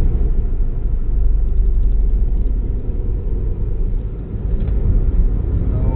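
Low, steady rumble of an Opel Corsa's engine and tyres heard from inside the cabin while driving, easing off slightly about four seconds in.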